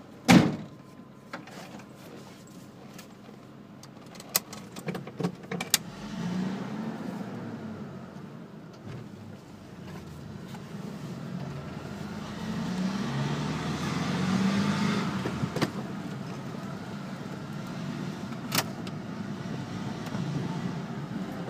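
Inside a car: a sharp knock just after the start and a few clicks, then the car's engine and tyres as it drives off, the engine note rising and falling. Another sharp click comes near the end.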